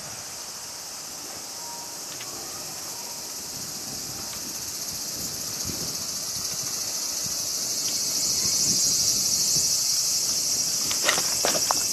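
Cicadas buzzing in a steady, shrill drone that grows louder over the first eight seconds or so. A few short clicks sound near the end.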